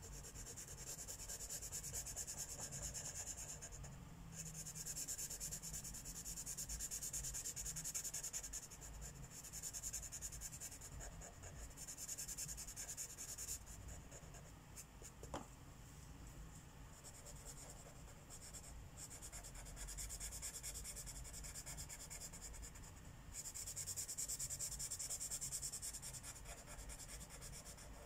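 Felt-tip marker rubbing across paper in runs of quick back-and-forth colouring strokes, each run lasting a few seconds with short pauses between, lighter through the middle and picking up again near the end.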